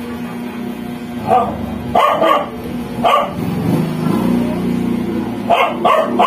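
A dog barking, about seven short barks, singly or in quick pairs, over a steady low background hum.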